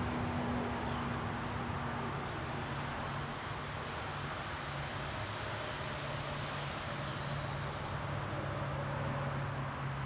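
Steady outdoor background hiss with a low, steady mechanical hum underneath, and a few faint, high bird chirps about seven seconds in.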